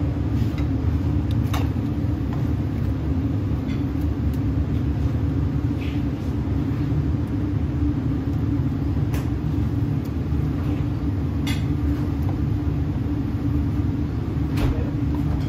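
A steady low rumble with a few brief light clicks scattered through it.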